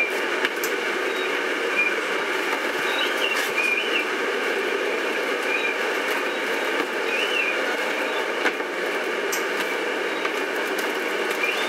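Interior noise of a moving bus: a steady running drone with loose fittings rattling and clicking, and short high squeaks here and there.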